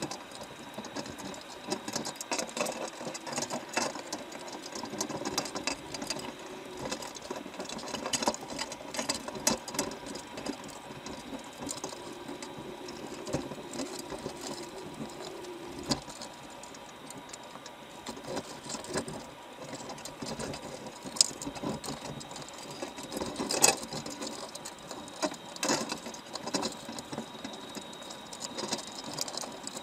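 Underwater sound from a camera inside a crab trap: continuous rapid clicking and crackling with a faint steady whine, and a few louder sharp clicks in the second half.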